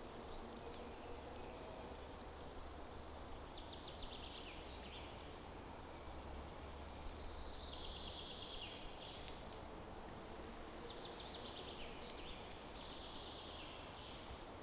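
Forest ambience with a steady hiss and low hum, over which a small songbird sings short falling trills about every three seconds.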